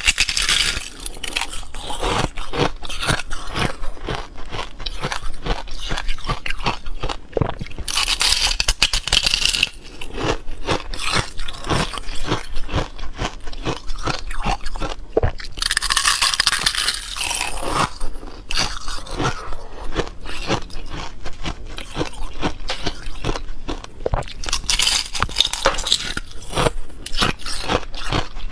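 Hard ice being bitten and chewed: pieces of a thick frozen ice-ball shell cracking and crunching between the teeth in quick, dense crunches. A few times there is a longer spell of hissing crackle as the frosty crystal layer crumbles.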